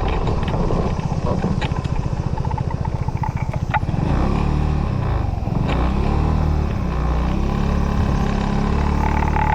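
Motorcycle engine while riding: a slow, even beat at low revs for the first few seconds, then the pitch rises and falls as it pulls away, settling into a steady run. A high ringing tone comes in near the end.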